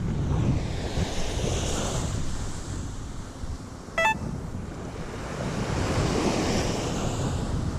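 Surf breaking on a beach, with wind buffeting the microphone; the wash swells up twice. A very short high blip sounds about four seconds in.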